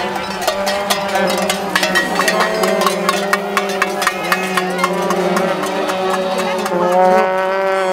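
Noise-parade din from handheld noisemakers: party horns blow overlapping held tones over a rapid clatter of knocks and rattles. A louder horn blast swells in near the end.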